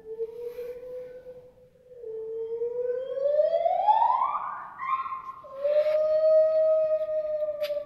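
Gibbons singing their loud song: long pure hoots, one swooping up in pitch to a high climax, then a long held note. A short click sounds near the end.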